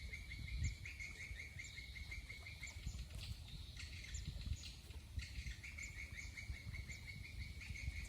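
Faint, fast, even chirping in a high register, about seven chirps a second, from a small calling animal. It stops for about two seconds near the middle, then starts again, over a low rumble.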